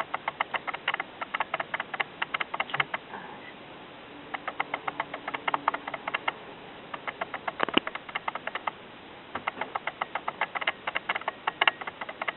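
Kitten eating, rapid wet lapping or smacking clicks at about seven or eight a second, in four runs of two to three seconds with short pauses between them.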